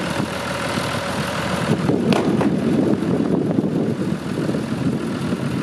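Engine of a boatyard travel lift running steadily while the lift holds a yacht in its slings, with a brief high squeak about two seconds in.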